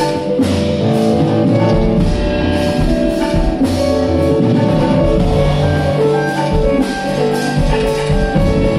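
Live ensemble playing a thumri: held melodic notes over regular tabla strokes, with electric guitar and keyboard in the band.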